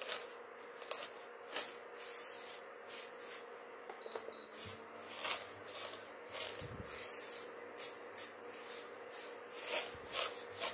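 A silicone spatula stirring and pressing dry strands of vermicelli roasting in ghee in a non-stick pan: short, irregular scraping rustles over a faint steady hum.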